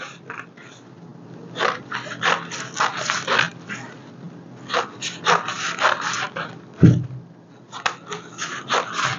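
Scissors snipping through layered pink paper in three quick runs of cuts, cutting a fringe. A single dull knock about seven seconds in.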